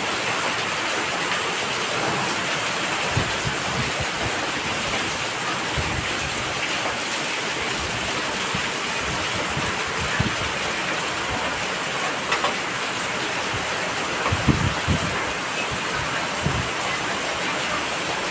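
Heavy rain falling steadily as a dense, even hiss, with a few short low thuds scattered through it, the loudest about three quarters of the way in.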